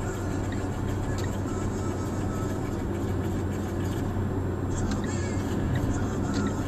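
Car cabin noise while driving at steady speed: a steady low engine hum under tyre and road noise, with a few faint clicks.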